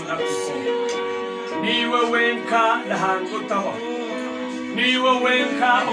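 Worship music: a voice singing phrases over long held instrumental chords.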